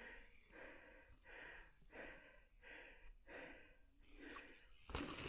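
A person breathing hard close to the microphone: quick, rhythmic breaths in and out, about one and a half a second. A sharp knock comes near the end.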